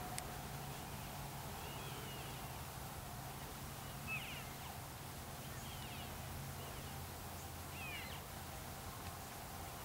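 Elk in a herd giving short, high, bending chirps, about four calls a couple of seconds apart.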